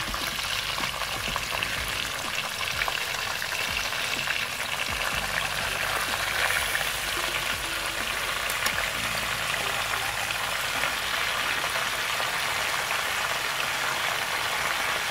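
Oil sizzling steadily in an aluminium pot as lemongrass, garlic, shallots and lime leaves fry, with a whole duck pressed down into the hot pot.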